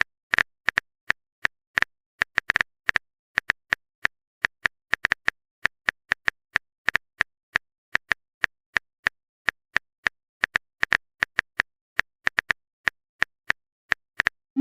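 Typing sound effect of a phone keyboard: a long, uneven run of short, sharp key clicks, about four a second, with silence between them.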